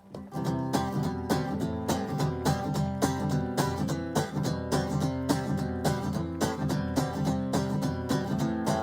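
Acoustic guitar strummed in a steady, even rhythm: the instrumental introduction of a song, with no singing yet.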